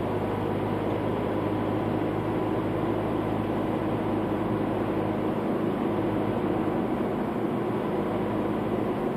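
Steady engine hum and tyre and road noise of a vehicle driving along a road at an even speed.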